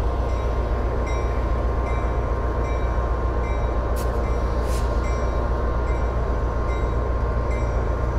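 Train running: a steady low rumble with a light tick repeating about twice a second.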